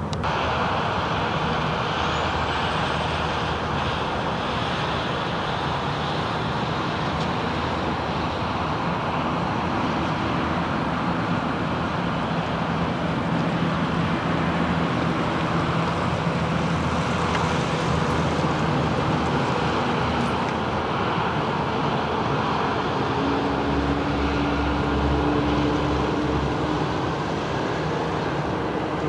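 Boeing 787 Dreamliner jet engine starting up on its first ground run: a steady rushing roar with a thin whine that rises about two seconds in. A lower hum and rumble come in near the end.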